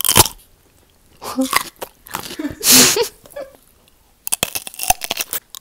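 Raw cucumber being bitten and chewed close to an earphone microphone: a quick run of crisp crunching clicks starting about four seconds in. Earlier there are a few scattered short sounds and one brief noisy burst.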